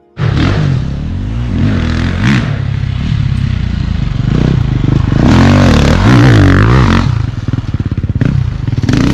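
Dirt bike engine revving hard, its pitch climbing and dropping again and again with throttle and gear changes. It is loudest a little past the middle and turns choppy and stuttering near the end.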